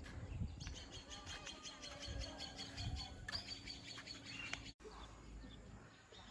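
Small songbird chirping: a quick run of short, high chirps repeated many times over a few seconds, fairly faint.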